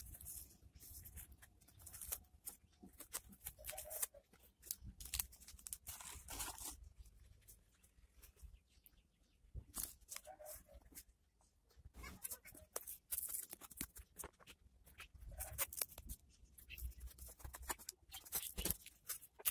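Plastic photocard sleeves, cardboard backing boards and tape being handled: irregular crinkling and rustling in short clusters, with brief tearing sounds.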